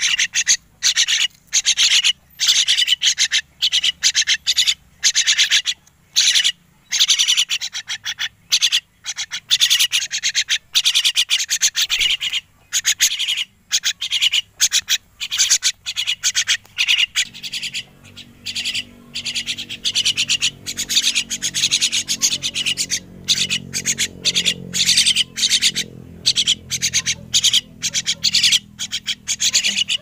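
Two young crested mynas calling over and over in short, rapid bursts as they feed.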